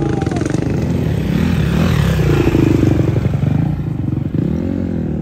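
Dirt bike engines running, revved up and down a few times, the pitch rising and falling.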